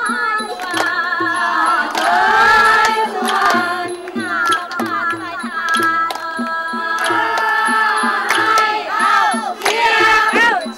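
Women singing a Thai boat song (he ruea) into microphones, the melody winding and ornamented, over a steady beat of hand claps.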